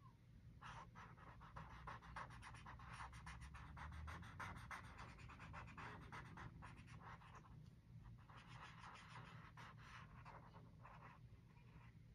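Quiet scratching of a drawing tool on paper: quick repeated strokes, several a second, with a short pause about two-thirds of the way in before the strokes resume.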